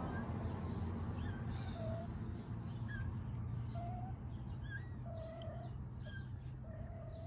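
Birds chirping and calling in short, separate notes over a steady low hum.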